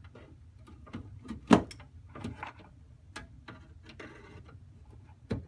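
Needle-nose pliers and metal wire connectors clicking and knocking against the terminals of 12 V battery blocks as the connectors are squeezed off. A string of sharp clicks, the loudest about a second and a half in, with a brief scratchy rustle around four seconds in.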